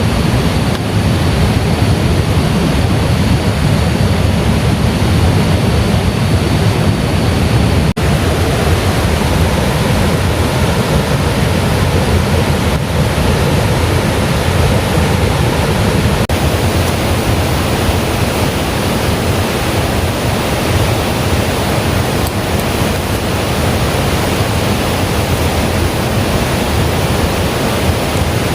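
Loud, steady rush of falling water with no let-up.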